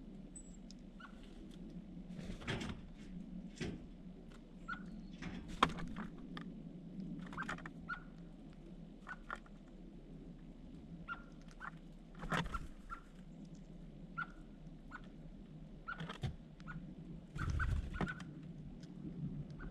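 Birds giving short, repeated chirps about once a second, mixed with scattered sharp clicks and knocks, over a steady low hum.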